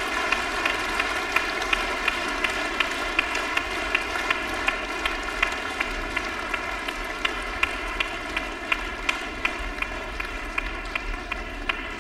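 Concert hall audience applauding, the clapping falling into a steady unison rhythm of about two claps a second.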